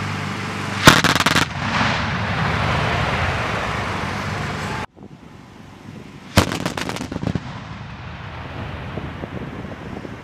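Oerlikon GDF twin 35 mm anti-aircraft guns firing short bursts of rapid shots, each followed by a rolling echo. One burst comes about a second in and another about six seconds in.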